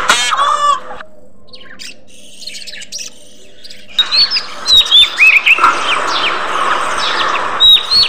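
A flock of budgerigars chirping and chattering. A harsh call opens, then a quieter stretch, then rapid, overlapping chirps from about halfway on.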